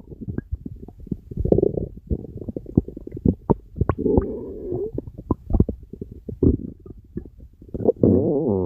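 A stomach rumbling: a run of quick gurgles and pops, with longer warbling gurgles about four seconds in and again near the end.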